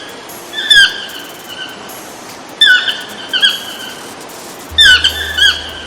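Toucan calling: short squeaky notes in bursts of two or three, repeating about every two seconds.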